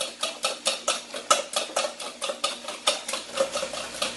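Eggs being beaten by hand in a stainless steel bowl, the utensil clicking against the bowl's side in a quick steady rhythm of about five strokes a second.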